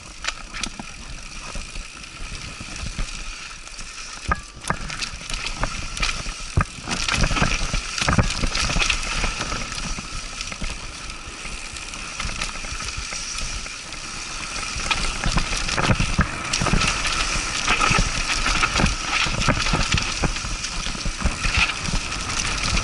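Mountain bike riding down a dirt singletrack, heard from a camera mounted on the bike: tyres rolling over dirt and leaf litter, with frequent clicks and rattles from the bike over bumps. It gets louder and busier about a third of the way in.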